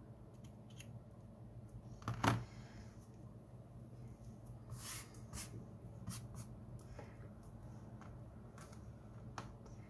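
Faint handling noise of hands working a crocheted hair tie and its tool: scattered small clicks and taps over a low steady hum, the loudest click about two seconds in.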